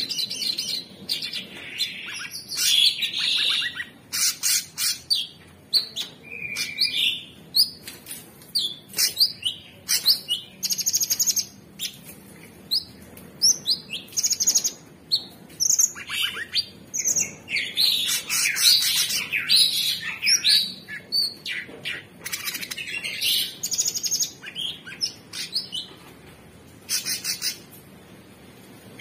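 Male orange-bellied leafbird (Chloropsis hardwickii) singing vigorously: a rapid, varied run of sharp chirps, whistled slurs and buzzy trills in bursts with brief gaps, with a quieter stretch near the end.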